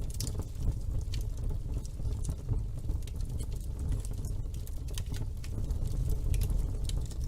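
Wood fire burning in a fireplace: a steady low sound of the flames with frequent, irregular sharp crackles and pops.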